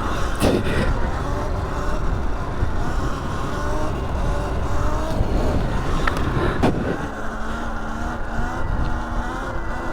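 Sur Ron Light Bee X electric dirt bike's motor whining, its pitch rising and falling as the throttle is worked, over a steady low rumble. Two brief knocks stand out, about half a second in and near seven seconds in.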